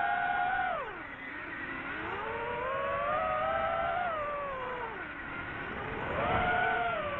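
DJI FPV drone's motors whining, the pitch swooping with the throttle in manual-mode flight. It drops sharply about a second in, climbs back over the next few seconds, dips again around five seconds in, and rises toward the end.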